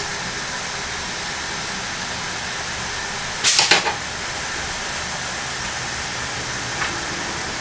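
A pan of red wine and shallots reducing on a gas hob, hissing and sizzling steadily. About three and a half seconds in there is a brief, louder burst of noise.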